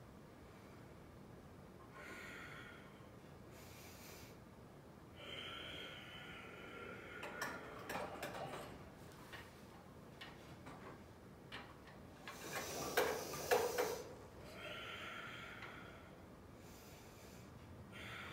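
A person breathing audibly in and out through the nose every few seconds while stretching, with the metal chains of a Pilates trapeze table's wooden push-through bar clinking and rattling. The rattling comes in two spells, the louder one a little past the middle.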